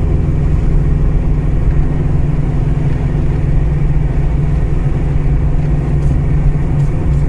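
Mitsubishi Astron 2000 four-cylinder engine in a freshly rebuilt, just-revived 1985 Sigma, running steadily under load while driving, heard inside the cabin with road noise. A couple of faint pops near the end, which the occupants wonder might be the carburettor popping.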